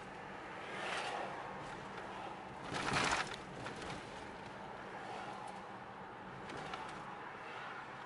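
Road and engine noise heard from inside a moving car, with a brief louder rush about three seconds in.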